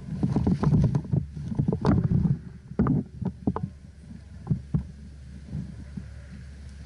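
Irregular low thumps and rubbing knocks on a body-worn action camera as the player moves, with a few sharp clicks, mostly in the first three and a half seconds, over a steady low rumble.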